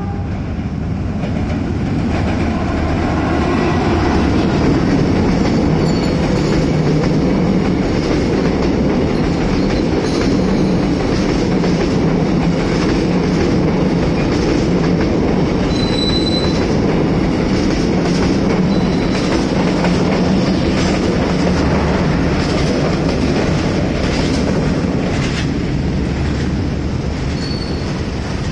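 Vietnam Railways SE3 diesel-hauled passenger train passing close by: the locomotive goes by in the first few seconds and then a long string of coaches rolls past with a steady rumble of wheels on rail. Wheel clicks over rail joints and a few brief, high wheel squeals sound through it.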